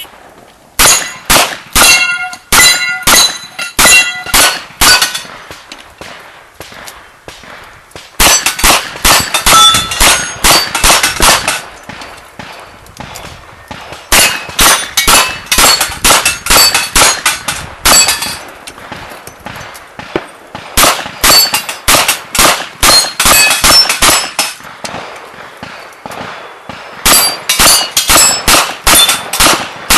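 Rapid strings of open-class revolver shots, each mixed with the clang of steel target plates ringing as they are hit. There are five strings with short pauses of a few seconds between them.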